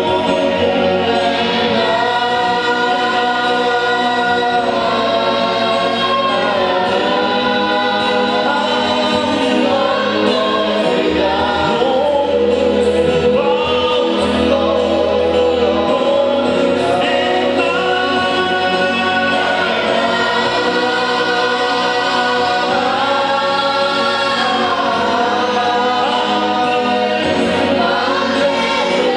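A group of voices singing a slow gospel worship song in chorus, holding long notes over an instrumental backing with sustained bass notes that change every few seconds.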